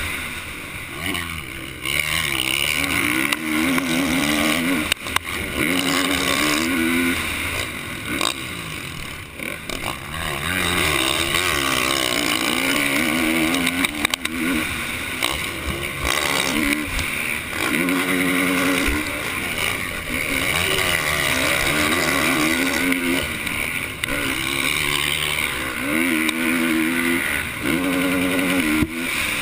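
Motocross bike engine at racing speed, revving hard and backing off over and over, its pitch climbing and falling as the rider works the throttle and gears, with a few sharp knocks along the way.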